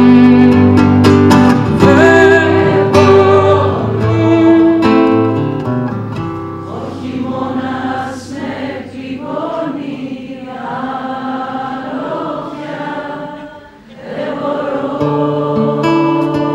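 Classical guitar strummed in loud chords, then a softer stretch from about six seconds in where singing without clear words carries over lighter playing; after a brief dip near the end, the strummed chords return.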